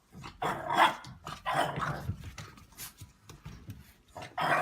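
A dog barking and whining in a few short bursts, the loudest about a second in.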